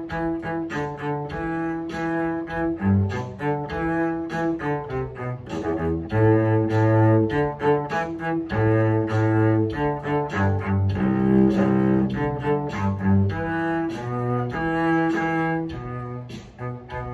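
Cello bowed solo, playing a rhythmic line of short repeated notes mixed with longer held notes at 100 beats per minute.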